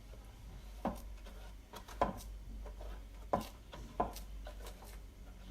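Light knocks and clicks of kitchen utensils against dishes, four or five separate taps about a second apart, while milk is being spooned or poured over biscuits in a cake mould.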